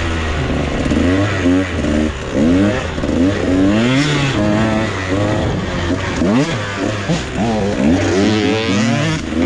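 Dirt bike engines being ridden on a trail. The pitch rises and falls again and again as the throttle is opened and closed, over a steady low engine note.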